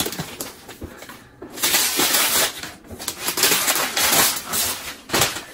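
Gift wrapping paper crinkling and tearing as it is pulled off a cardboard box, in irregular bursts with two brief pauses, louder from about one and a half seconds in.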